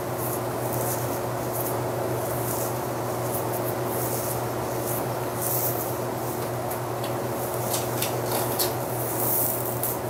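Steady mechanical hum in a small room, with intermittent rubbing and rustling against the microphone and a few light clicks in the second half.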